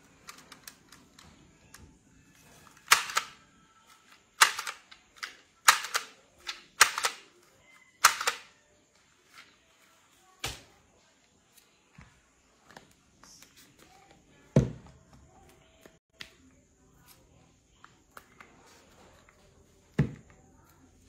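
Handheld price-label gun clacking as its trigger is squeezed and released: five sharp clacks within about five seconds, then a few fainter clicks. Two duller thuds come later, one just past the middle and one near the end.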